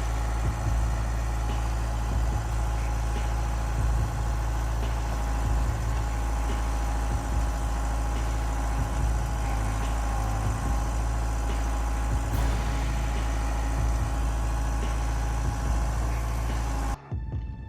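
Heavy diesel engine of a forestry machine running steadily at constant speed, with a steady whine over a low rumble. It cuts off abruptly just before the end.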